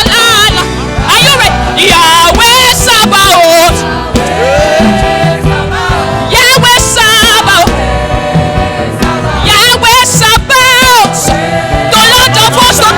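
Live gospel worship music: a choir and lead singers over a band with a steady drum beat, the sung melody wavering and gliding.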